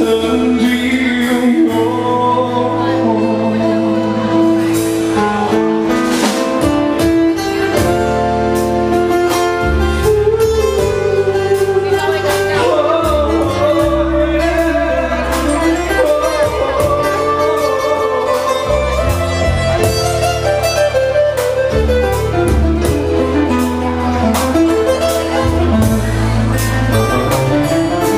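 Live pop song: a singer singing into a microphone over keyboard accompaniment with a bass line and a steady beat, picked up by a vlogging camera's microphone in the room.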